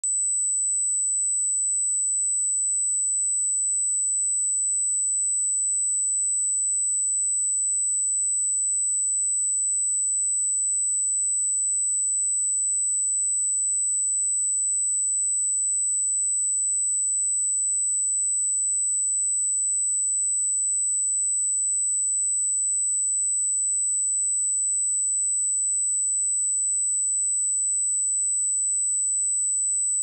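Steady, high-pitched 7998 Hz sine-wave test tone, a single pure tone held at constant level.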